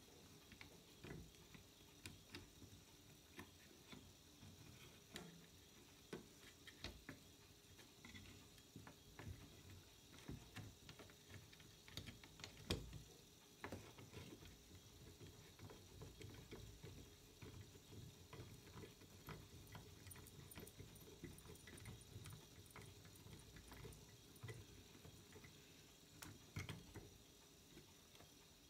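Near silence with faint, scattered light clicks and taps of hands and a metal tool handling components on a TV circuit board, one somewhat louder click about halfway through.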